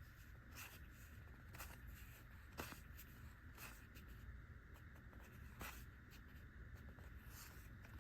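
Faint, soft ticks and rustles of trading cards being slid and flipped through the hands one at a time, roughly once a second.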